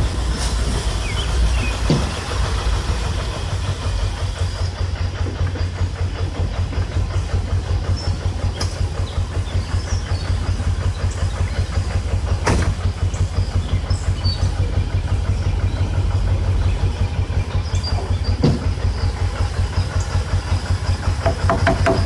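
Tow truck engine running with a steady low, pulsing throb, with a few sharp clicks over it.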